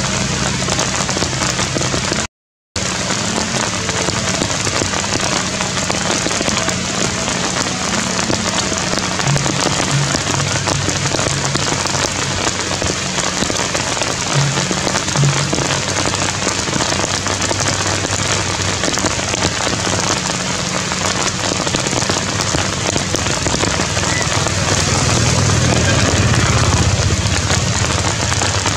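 Steady rain falling, a dense even hiss. The sound cuts out completely for under half a second about two seconds in.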